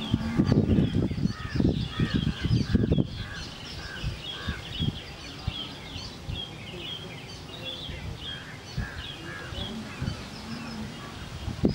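Many small birds chirping in the background, short high calls overlapping throughout. Low rumbling noise is louder during the first three seconds, then eases off.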